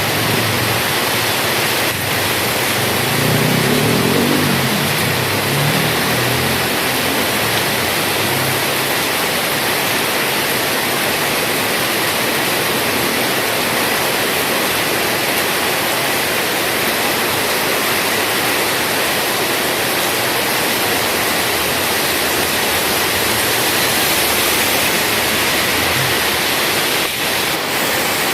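Heavy rain falling steadily, a dense even hiss. A low rumble sits under it for the first few seconds.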